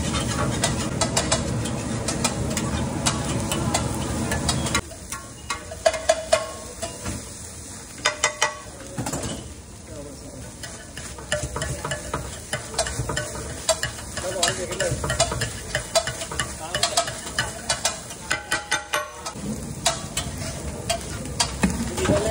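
A metal spatula scraping and tapping on a large flat griddle (tawa) as egg and chopped vegetables are scrambled and fried, over a sizzle. A loud steady sizzling hiss fills about the first five seconds, then drops off suddenly, leaving a quieter sizzle with repeated sharp scrapes and clacks of the spatula.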